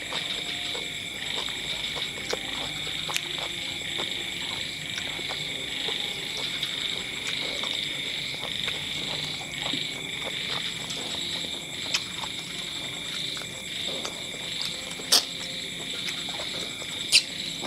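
Close-up eating sounds: chewing and lip-smacking on braised chicken eaten by hand, with many small wet clicks and two sharp louder clicks near the end. Under them runs a steady high-pitched night chorus of calling frogs and insects.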